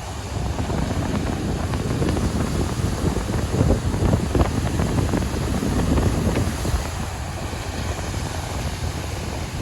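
Wind gusting against the microphone with waves washing behind it: a dense, rumbling noise that swells and eases.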